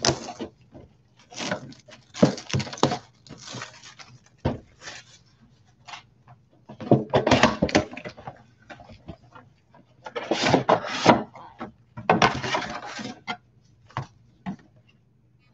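Plastic shrink wrap crinkling and tearing, with cardboard rustling, as a Panini Prizm football mega box is unwrapped and opened. The noise comes in irregular bursts with short pauses, loudest around the middle and again later on.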